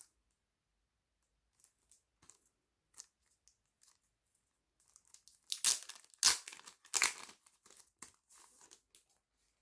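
Paper packaging being torn open and crinkled by hand: a few light handling ticks, then a run of loud rips and crinkling about five seconds in.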